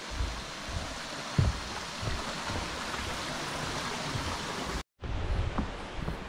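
Steady rushing of a mountain stream, with a few dull low thumps over it; the sound drops out briefly about five seconds in.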